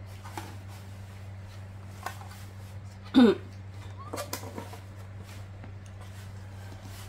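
Foil seal being peeled off a tin of S-26 infant formula powder, with light crinkling and rustling, and one brief loud squeak that falls steeply in pitch about three seconds in. A steady low hum runs underneath.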